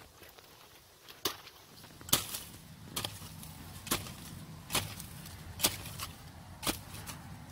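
A small digging hoe on a metal pipe handle striking and chopping into damp soil about seven times, roughly once a second.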